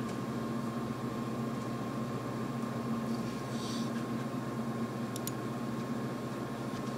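Steady low electrical hum with an even hiss underneath. About halfway through there is a short, faint breathy hiss, and a couple of faint clicks follow a little later.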